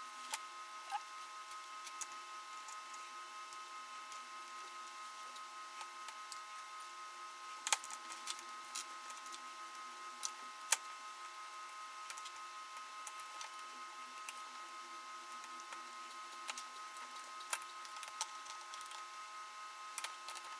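Scattered light clicks and taps from small repair tools and an iPhone 6 being handled, over a steady hum with several faint fixed tones.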